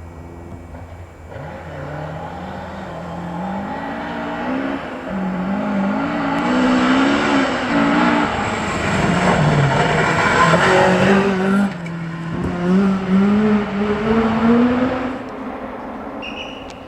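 Classic Ford Escort rally car engine accelerating hard through the gears, its pitch climbing and dropping back at each change, getting louder as the car approaches and passes, with a brief lift near the middle, then fading away.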